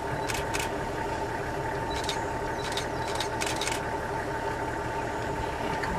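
Vehicle engine idling steadily with a low rumble and a faint steady whine, with a few brief sharp clicks over it.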